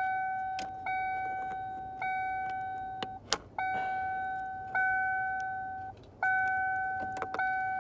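The 1997 Ford Mustang's electronic warning chime dinging about once a second, each ding fading before the next, and sounding although no key is in the ignition. There is a sharp click about three seconds in, where the dinging briefly stops, and a short break near the end.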